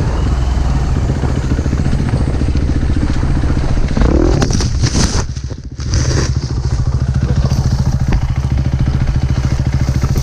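An off-road dirt bike engine running with a steady low beat. About four seconds in there is a rougher, scraping patch, and the engine drops off briefly before it settles back into its steady beat.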